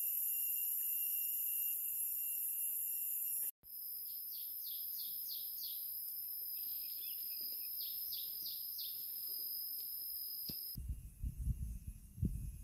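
Forest ambience: a steady high insect drone, with a bird giving two runs of quick descending chirps, several in a row each time. Near the end a low, uneven rumble comes in.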